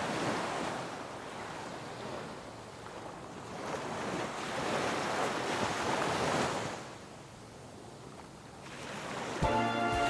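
Ocean surf washing in and drawing back, swelling and fading. Music comes in near the end.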